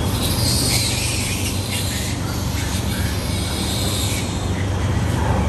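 Short high-pitched animal calls scattered over a steady low rumble.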